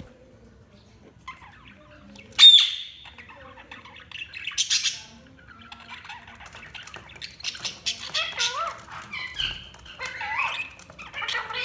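Budgerigars chirping and warbling, with one loud sharp squawk about two and a half seconds in. The chatter grows busier and runs almost without a break through the second half, full of quick rising and falling notes.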